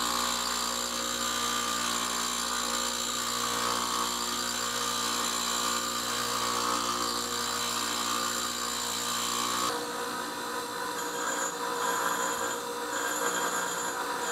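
8-inch bench grinder running while its new, off-centre wheel is dressed true: a steady motor hum with the rasp of the dresser against the stone. About ten seconds in the sound changes abruptly, the low hum dropping away.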